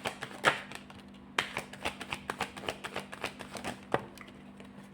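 Tarot cards being handled and shuffled by hand: a run of quick light taps and clicks, densest in the middle, over a faint steady hum.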